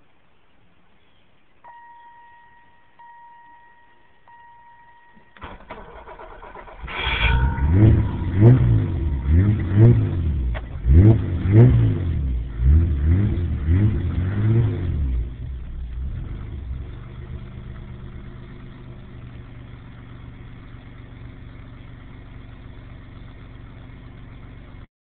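An older BMW, hot-wired under the dash: a steady warning beep sounds with the ignition live, then the engine cranks and catches about seven seconds in. It is revved about nine times in quick succession, each rev rising and falling, then settles to a steady idle until the sound cuts off near the end.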